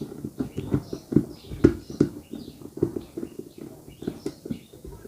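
Rapid, irregular knocks and clicks of electric-kettle parts being handled and fitted together, several a second.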